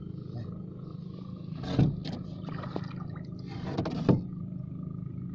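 A small engine running steadily at an even pitch, with two loud thumps about two seconds apart.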